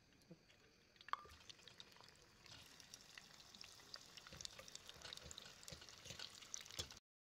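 Boiled potato wedges frying in hot oil in a pot: a faint sizzle at first with a sharp tap about a second in, then dense crackling and spitting from about two and a half seconds on.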